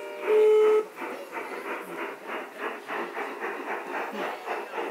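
Gauge 1 model steam locomotive giving a short steady whistle blast, then chuffing at an even beat of about four chuffs a second as it runs.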